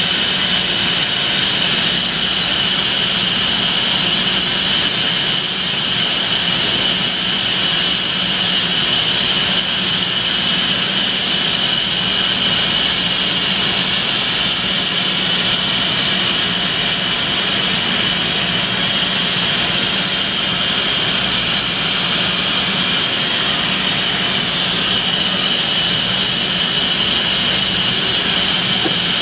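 CNC twin-spindle vertical lathe (Okuma & Howa 2SP-25HG) running with its spindle at high speed, about 3000 RPM: a steady high whine over a low hum, unchanging throughout.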